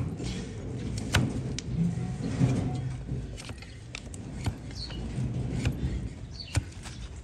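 Donkey hoof horn being pared with a large flat hoof-trimming blade pressed down against a wooden block: crisp cracks and scrapes as slivers of hoof come away, several at irregular intervals. Faint bird chirps in the second half.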